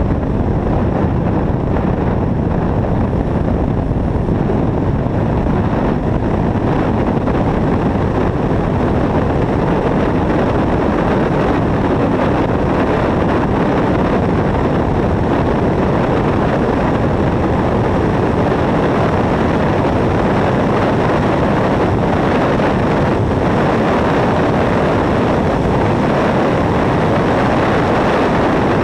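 Car driven at speed on a race track, heard through a camera mounted outside on the front of the car: a steady, dense rush of wind on the microphone mixed with engine and tyre noise.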